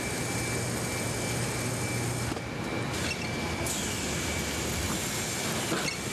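Steady factory-floor machinery noise: a constant hum and hiss with a thin high whine, shifting in character about two thirds of the way through, with a few faint knocks near the end.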